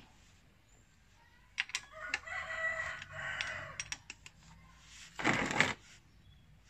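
Small metal clicks as a gearbox drain plug is turned out by hand, while a rooster crows once in the background for about two seconds. Near the end a short, louder rushing noise as the plug comes free.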